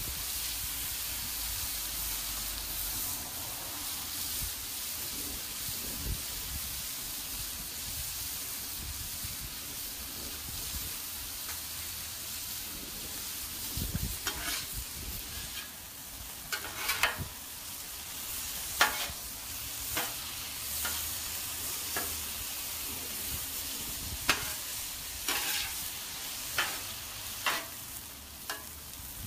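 Bite-size chicken thigh pieces sizzling on a hot Blackstone flat-top griddle, a steady hiss. From about halfway through, a steel spatula repeatedly scrapes and clacks against the griddle's steel top as the chicken is turned, about a dozen sharp strokes.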